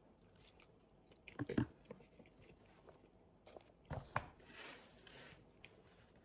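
Faint chewing of a mouthful of food. Short crunchy bites or knocks come about a second and a half in and again around four seconds in, followed by a brief soft rustle.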